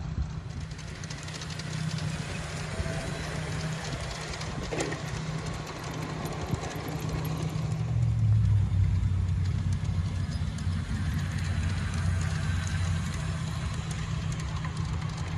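G-scale model train running on a garden railroad, a steady low hum that grows louder about halfway through and eases off a few seconds later as it passes close.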